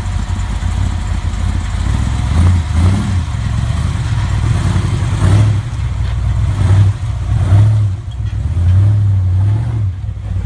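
Big-block Chevy V8 in a rock buggy revving hard in repeated bursts of throttle, with a deep exhaust note.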